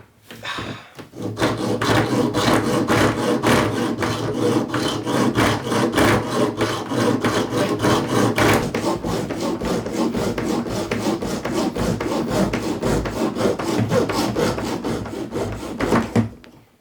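Small hand saw cutting through a suitcase wheel's axle shaft in quick, rapid back-and-forth strokes, a steady rasping that stops shortly before the end as the shaft is cut through.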